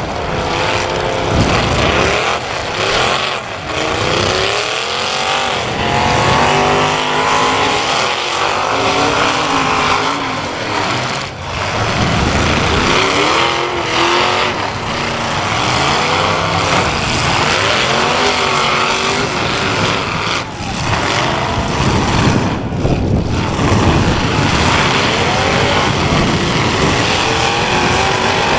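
Demolition derby cars' engines revving hard, rising and falling in pitch over and over, several at once.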